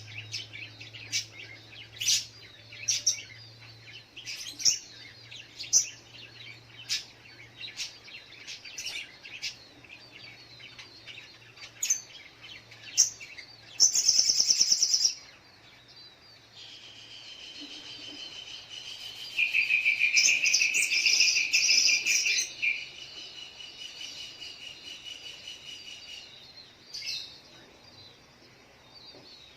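Sogok ontong (little spiderhunter) calling: short sharp chirps about once a second, then a brief loud high burst, then a long trilling song held for several seconds.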